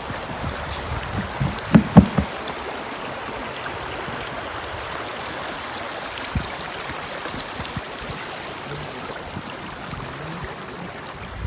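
Steady rush of flowing stream water, with a couple of low thumps about two seconds in.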